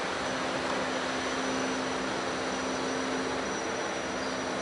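Inland cargo ship's diesel engine running steadily as it passes, a low hum under a constant rushing noise.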